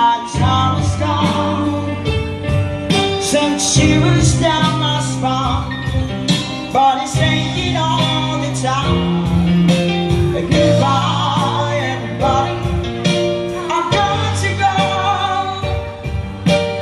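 Live band music: singing over electronic keyboard with a steady beat.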